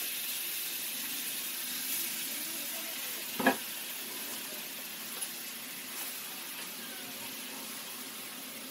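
Marinated chicken sizzling as it fries in a kadai on a gas stove: a steady frying hiss that slowly eases, with one sharp knock about three and a half seconds in.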